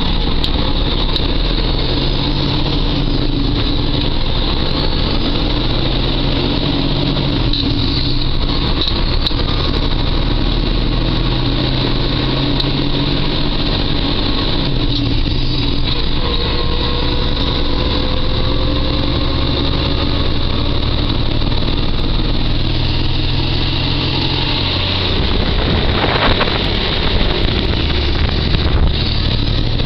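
Peterbilt truck's diesel engine heard from inside the cab as the driver shifts up through the gears of its manual transmission. The engine note breaks off and picks up again at each shift, and a slow rising whine builds as the truck gathers speed between shifts.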